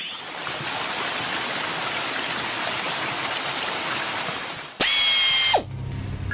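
Cartoon water-spray sound effect: a steady hiss of car-wash nozzles spraying water, which stops about five seconds in. A short, louder whistle-like tone follows, sliding down in pitch as it cuts off.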